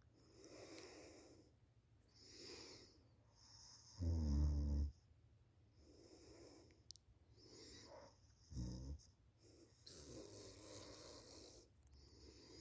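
A sleeping person snoring, with soft breaths every second or two. There is a loud, low, buzzing snore about four seconds in and a shorter one near the end of the second third.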